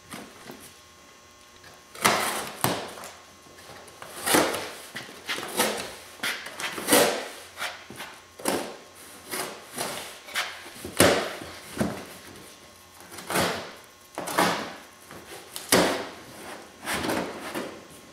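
Cardboard shipping box being cut and pulled open by hand and its cardboard packing shifted: a string of irregular scraping, rustling and knocking handling noises, about one a second, starting about two seconds in.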